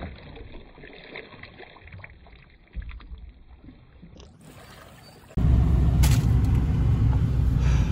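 A brief splash of a released smallmouth bass swimming off beside the boat, then faint lapping of water. About five seconds in, loud steady low rumble of engine and road inside a Ford Super Duty pickup truck's cabin.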